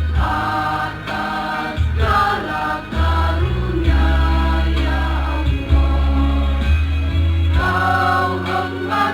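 School choir singing in parts, with held notes over a deep bass accompaniment whose notes change every second or so.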